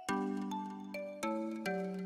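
Background music: a simple melody of pitched notes, each struck and then fading, about two notes a second.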